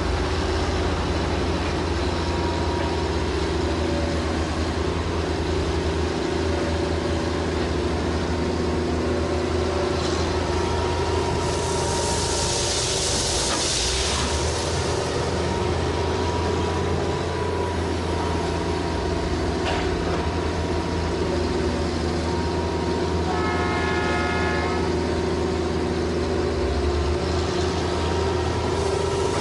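Hitachi excavator's diesel engine running steadily under load as it works. A rushing hiss rises about twelve seconds in and fades about three seconds later, and a short horn-like tone sounds about two-thirds of the way through.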